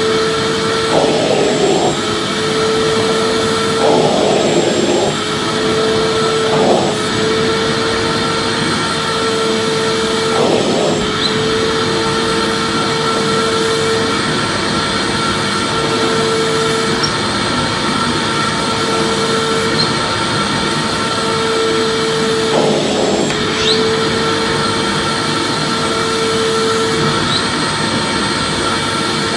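Vacuum cleaner running steadily: a constant rushing hum with a steady whine that drops out briefly every few seconds. There are short surges of rushing air in the first eleven seconds or so, and once more about 23 seconds in.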